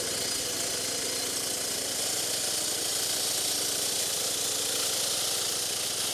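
Walk-behind concrete and asphalt saw running: its engine hums steadily under a constant high hiss.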